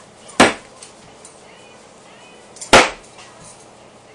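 Two thrown knives hitting and sticking in a wooden 2x4 target, each a single loud, sharp impact, the second about two and a quarter seconds after the first.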